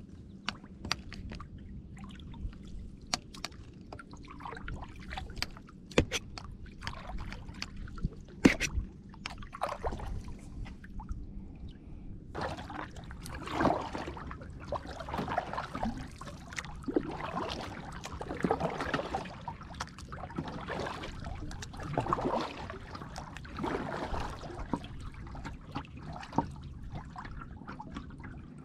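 Kayak paddling: the blades splash and drip water in a regular stroke rhythm, about one stroke every one and a half to two seconds, from about halfway through. Before that, scattered sharp clicks and knocks.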